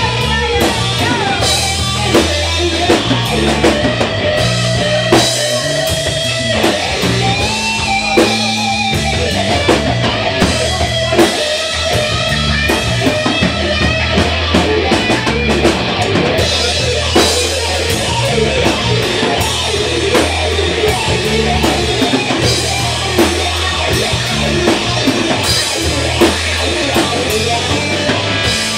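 Live blues-rock band playing an instrumental stretch: electric guitar, bass and drum kit keeping a steady beat, with saxophone and a lead line of bending notes over it.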